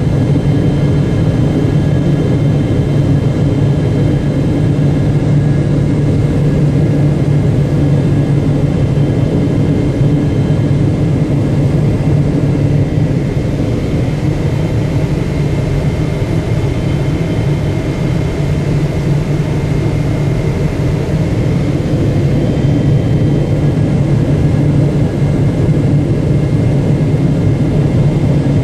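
Steady cabin noise inside a Boeing 777-300ER on final approach: a loud low drone from its GE90 turbofan engines and the rushing air, with a few faint, steady high whines above it.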